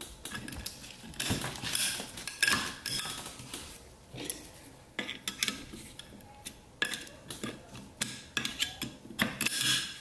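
Steel snap ring being worked into its groove in a 4L80E overdrive clutch drum, with scattered light metallic clicks, clinks and scrapes as the ring and tool move against the drum.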